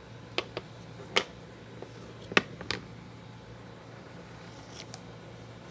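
Plastic toys being handled on a tabletop: scattered light clicks and knocks, the loudest about two and a half seconds in, over a steady low hum.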